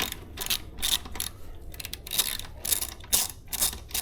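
Sharp metal clicks, about three a second, from hand-tool work on the e-bike's rear axle nut and washers.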